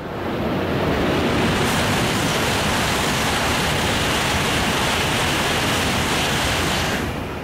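E5 series Shinkansen bullet train passing through the station at speed: a loud, steady rush of air and rail noise that builds over the first second and drops away sharply near the end.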